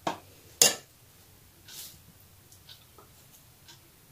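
A metal spoon clinking twice against a stainless steel pot while scooping cream, the second clink the loudest, followed by a soft scrape and a few faint taps.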